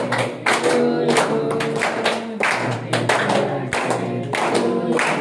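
A group of voices singing together while clapping in time, about two claps a second.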